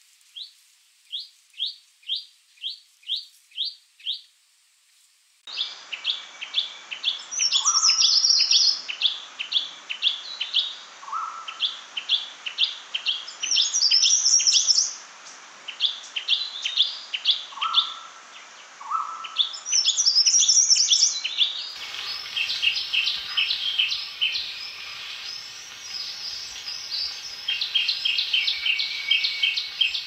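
Shrike-babbler song from several recordings spliced together. It opens with a run of seven quick falling notes; after a short break come repeated clear notes with bursts of higher, rapid trilled phrases, and from about two-thirds of the way in a denser run of song over a steady background hiss.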